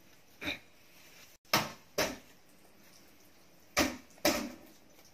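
Five short, sharp knocks and taps, the louder four in two pairs about half a second apart: shoes and a slide sandal bumping on a tile floor while new tennis shoes are put on and laced.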